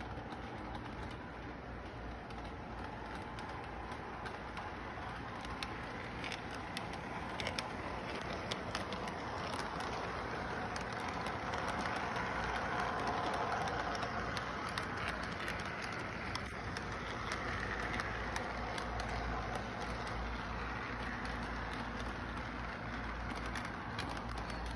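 Model train running on its track: a steady motor whir and rolling rattle with many small clicks from the wheels, swelling as the cars pass close by around the middle, over a steady low background rumble.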